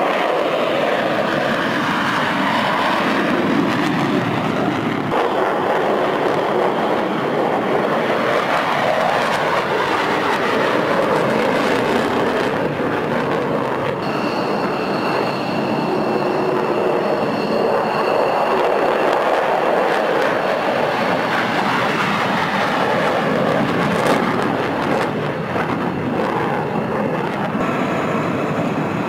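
Military jet engines running at high power during runway takeoffs: a loud, steady rush of engine noise, with a high whine held for several seconds about halfway through.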